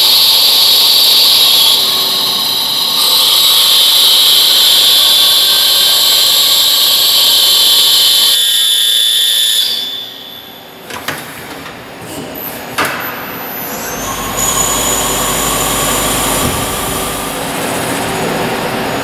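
CNC multi-axis lathe turning brass bar stock with three tools in the cut at once: a steady hiss with high whining tones from cutting, spindle and coolant. About ten seconds in the sound drops to a quieter machining noise, with a few sharp clicks.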